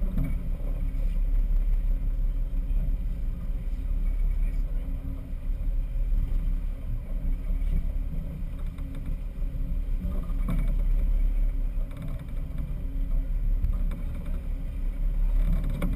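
Sportfishing boat's engine running under way, a steady low rumble mixed with rushing water and wind.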